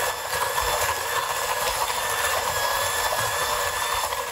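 Electric hand mixer running steadily with a faint constant whine, its beaters whipping egg yolks and sugar in a glass bowl until the sugar dissolves.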